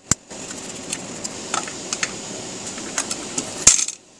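Scattered light clicks and taps from a circuit board being handled on a tabletop, with a sharp click just after the start and a louder knock near the end, over a steady background hiss.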